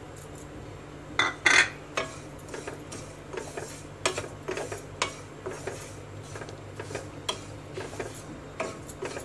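Wooden spatula stirring dry vermicelli as it roasts in a non-stick kadhai: irregular scraping and light tapping against the pan. Two louder knocks come about a second and a half in.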